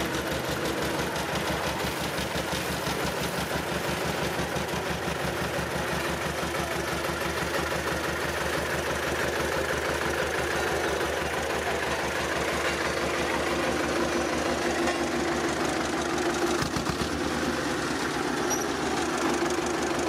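Diesel engine of a Greaves road roller running steadily, with a fast, even throb.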